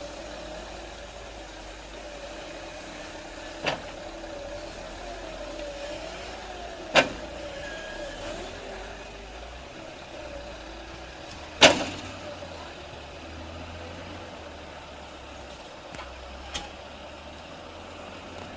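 A machine's engine runs steadily with a slightly wavering tone, broken by three loud, sharp knocks a few seconds apart and two lighter ones near the end.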